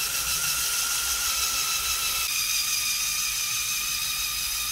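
Lego Technic electric motor and gear train whining steadily as the many-geared vehicle climbs a ramp under load. The tone shifts slightly about two seconds in.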